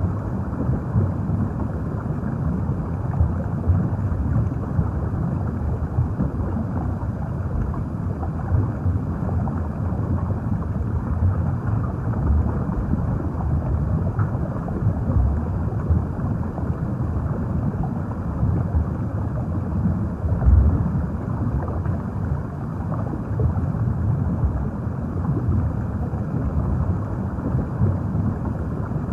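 Underwater ambience: a steady, deep, muffled rumble of moving water, with a slight swell about twenty seconds in.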